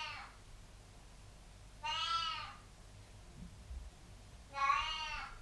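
Domestic cat meowing: the tail of one meow at the very start, then two more, about two seconds in and near the end, each under a second long.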